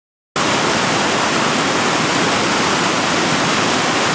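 Whitewater rapids rushing, a loud steady wash of water noise that cuts in suddenly from silence a moment in.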